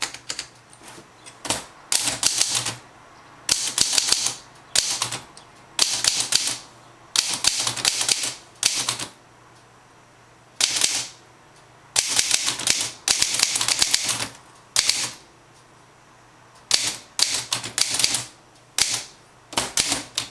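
Olivetti Studio 44 manual typewriter being typed on: its typebars strike the platen in quick runs of sharp clacks, broken by short pauses of up to about two seconds between bursts.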